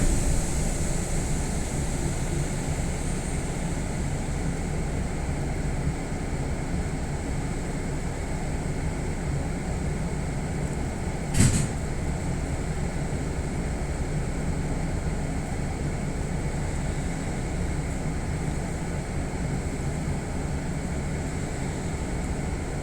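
Steady hum inside a Kintetsu Minami-Osaka Line train car, with a thin high whine over it. One sharp clack about eleven and a half seconds in.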